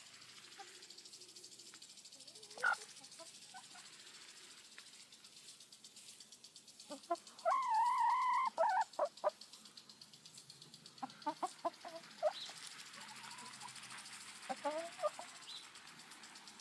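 Hens clucking while foraging. A single short squawk comes early on, then a longer wavering call lasting about a second and a half around the middle, which is the loudest sound. After it comes a run of short, quick clucks.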